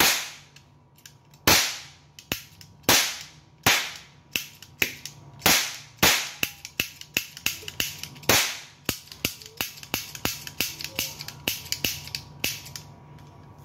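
Toy cap pistol firing a long string of caps: sharp cracks, each with a short echo. The first shots are loud and a second or so apart, then from about halfway a quicker run of weaker snaps follows until the caps run out.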